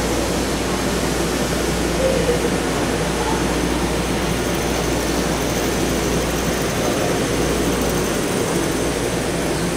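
BART train in an underground station, a loud steady mechanical noise as it stands with its doors open and then starts to pull out near the end.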